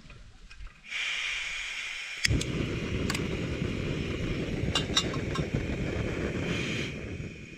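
Portable gas-cartridge camping stove being lit. Gas hisses from the burner about a second in, then catches with a click a little after two seconds in and burns with a steady rushing flame. A few light metallic clinks come as a steel pot is set on the burner.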